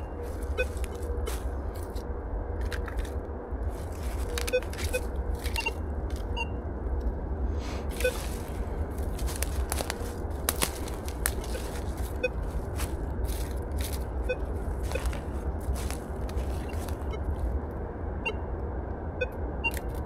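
Metal detector sweeping the forest floor: a faint steady tone with short, high blips every second or two, over a low steady hum. Dry leaf litter crackles and scrapes underfoot and under the coil throughout.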